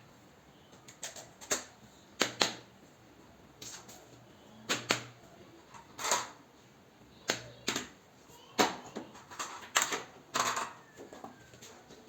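Irregular sharp clicks and taps, some in quick pairs, from small hard objects being handled close by.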